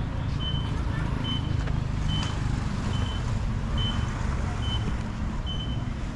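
Vehicle reversing alarm giving short, high-pitched beeps about once a second, over the steady low rumble of engines running.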